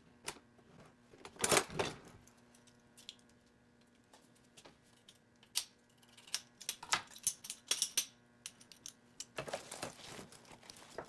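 Seasoning containers handled on a counter: scattered clicks and rattles, with a louder rustling burst about a second and a half in, a run of quick clicks in the middle and another burst near the end.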